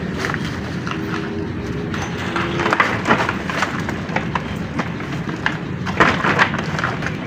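Gloved hands scooping dry, crumbling decayed wood and debris from an opened tomb into a woven plastic sack: irregular crackling and rustling, over a steady low rumble.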